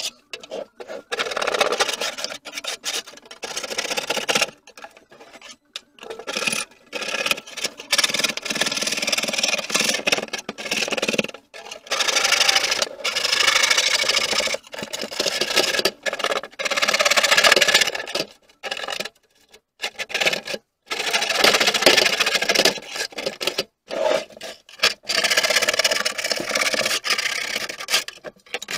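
A brush scrubbing and scraping rust and loose debris off the thin sheet metal inside a rusty toolbox, in runs of quick strokes broken by sudden gaps.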